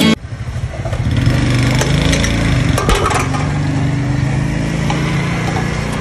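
Small motorcycle engine running steadily while riding, building up in the first second, with a brief knock about three seconds in.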